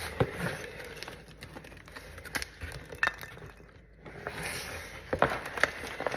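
Plastic and paper packaging rustling and crinkling as it is handled and pulled away from a potted plant, with scattered sharp clicks and taps.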